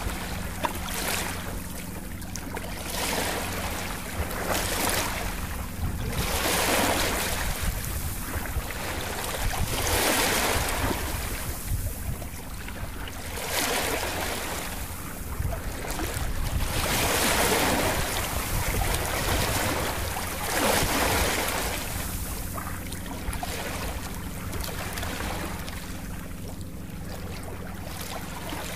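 Ocean surf: waves washing in and drawing back in irregular swells of hiss, over a steady low hum.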